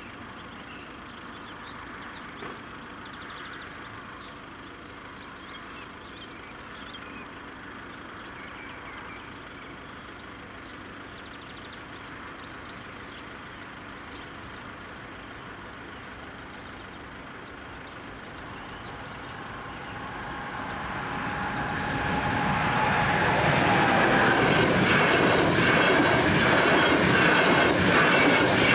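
Electric-hauled EuroCity passenger train approaching and passing over a level crossing at speed: faint at first, it swells from about twenty seconds in to a loud rush of wheels and coaches going by.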